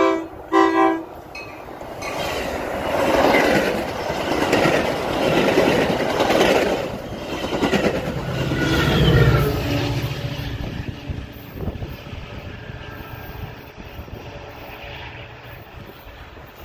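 Metra push-pull commuter train passing at speed without stopping: two short horn blasts near the start, then the rush and clatter of bilevel passenger cars on the rails. The diesel locomotive pushing at the rear goes by, its engine heard about eight seconds in, and the sound fades away.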